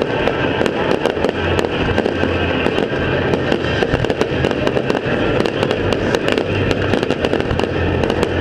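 Fireworks display: a dense, continuous crackling and popping of many shells and crackle effects bursting at once, with no break.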